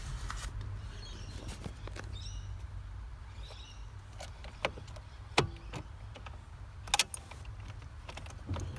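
Car key going into the ignition of a Holden VY Commodore and being turned: a few sharp clicks over a low steady hum.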